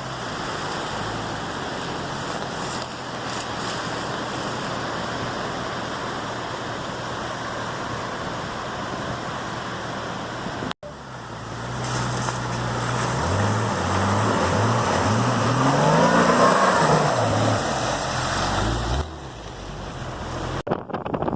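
Wind buffeting the microphone over a vehicle engine running low. After a cut, the engine revs climb in steps and fall again, louder, then ease off near the end.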